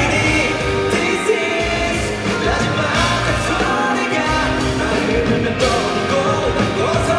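Live pop-rock band performance, loud and continuous, with a sung vocal over drums and guitars.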